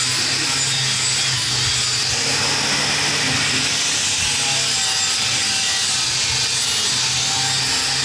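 Angle grinder with an abrasive disc grinding a steel motorcycle frame tube: a steady, unbroken rasping hiss over the motor's hum.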